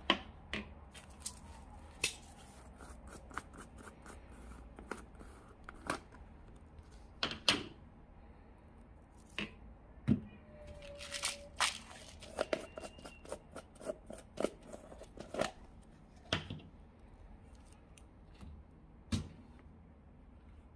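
Plastic jars of Orbeez water beads being handled and set down on a metal tray: sharp taps and clicks at irregular intervals, with a brief squeak near the middle.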